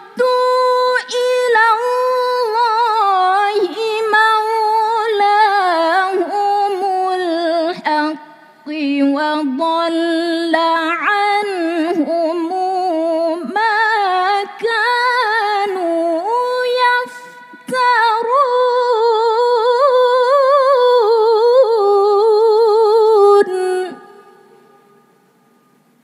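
A woman reciting the Quran in the melodic tilawah style: long, ornamented sung phrases with a quavering, wavering pitch. A few brief breaks for breath come along the way, and the recitation stops near the end.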